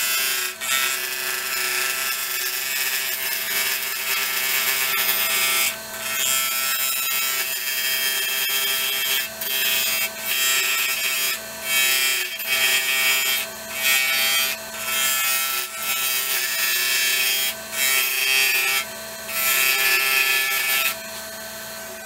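Steel lathe gouge cutting a spinning epoxy-resin blank with brass ammo casings cast inside, a steady hiss of shavings in passes broken by short pauses every couple of seconds, over the steady hum of the lathe. The cutting stops about a second before the end, leaving the lathe running alone.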